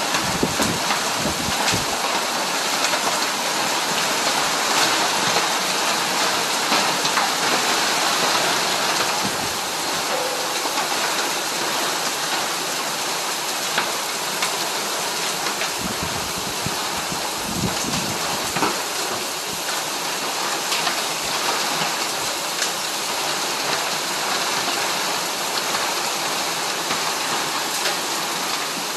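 Heavy rain pouring down in a strong storm, a dense, steady hiss of falling water. A few brief low rumbles come through about a second in and again around sixteen to eighteen seconds in.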